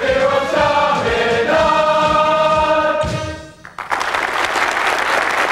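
Choir of young men singing and closing on a long held chord that dies away about three and a half seconds in, followed at once by audience applause.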